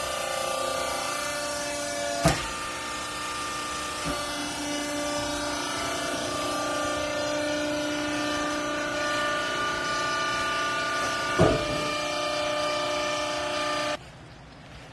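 Horizontal-stroke clothing baler's hydraulic power unit running with a steady whine of several tones, broken by two sharp clunks, about two seconds in and again near eleven seconds. The machine cuts off suddenly about a second before the end.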